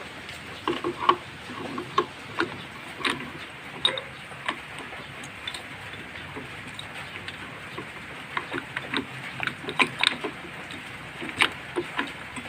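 Irregular light clicks and taps of hand tools and small metal parts being handled during work on a Honda XRM 125 engine under overhaul.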